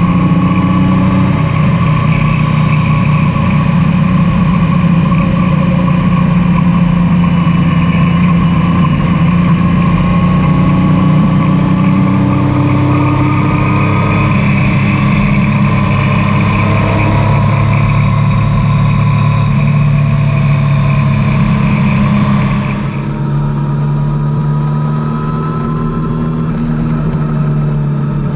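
Triumph Tiger 800's three-cylinder engine running on the move, its pitch rising and falling with the throttle. About 23 seconds in it gets quieter and duller.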